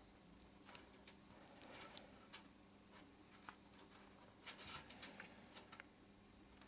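Faint, scattered small clicks and handling sounds of front-panel connector leads being fitted onto motherboard header pins, over a faint steady hum.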